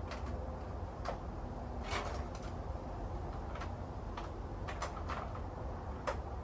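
Irregular light clicks and knocks of hand tools being handled, about ten in a few seconds, over a steady low hum.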